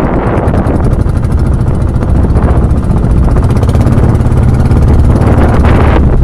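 Outrigger fishing boat's engine running steadily under way, a loud even drone.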